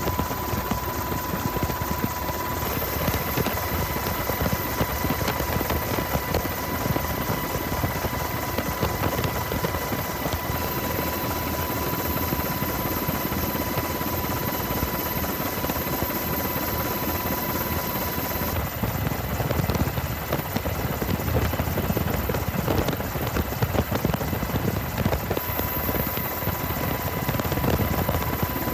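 Helicopter in flight: steady rotor noise with a fast chop and a steady high whine, changing a little in tone about 3 and 18 seconds in.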